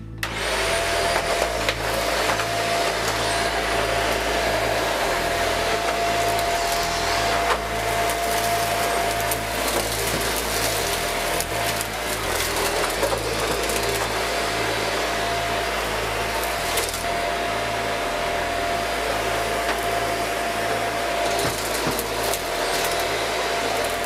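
Brand-new Shark upright vacuum cleaner switched on and running: its motor comes up to speed in the first second and holds a steady whine over a loud rush of air as it is pushed over the doormat.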